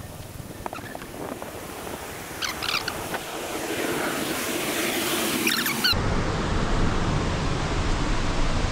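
Rushing water of a waterfall, a steady roar that grows louder over the first half. A deeper rumble comes in suddenly about six seconds in.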